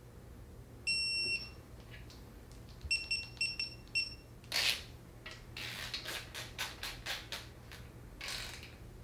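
Electronic torque wrench beeping while bolts are torqued: one long beep about a second in, then four short beeps, the signal that the set torque has been reached. Then a run of quick ratchet clicks and scraping as the wrench is worked on the next bolt.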